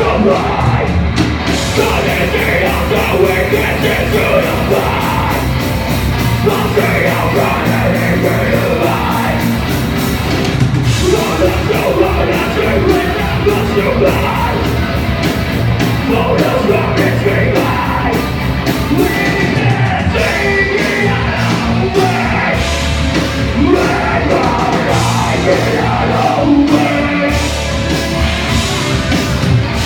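Live loud rock band playing, with shouted, yelling vocals over distorted guitars, bass and fast drums, in a heavy metal or punk style.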